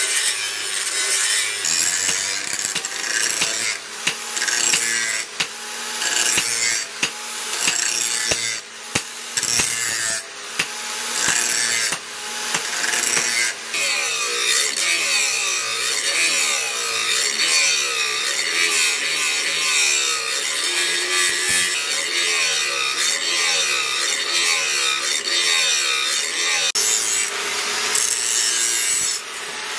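Electric angle grinder with an abrasive disc grinding the steel blade of a leaf-spring billhook. The grinding is loud and continuous, with several brief breaks in the first half, and the motor's whine wavers up and down as the disc bears on the metal.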